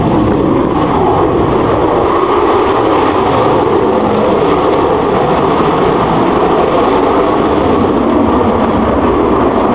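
Loud, steady jet noise from Avro Vulcan XH558's four Rolls-Royce Olympus turbojets as the delta-wing bomber climbs and banks overhead.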